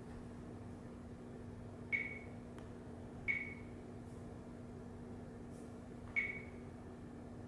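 Touchscreen of a Niloghap mirror dash cam unit giving three short high beeps as it is tapped: about two seconds in, a second later, and near the end. A faint steady hum runs underneath.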